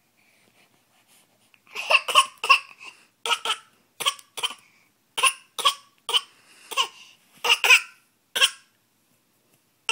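A baby fake-coughing: a run of short, separate coughs, many in quick pairs. They start about two seconds in and stop about a second before the end.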